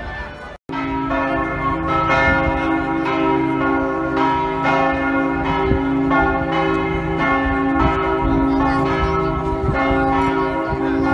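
Church bells of St Mark's Campanile ringing together, several pitches overlapping with fresh strikes about twice a second over a steady ringing hum.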